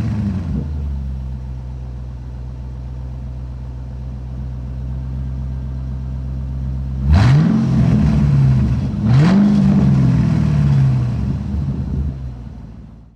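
John Deere F911 commercial mower's engine idling steadily, revved up twice in quick succession partway through, each time settling back down.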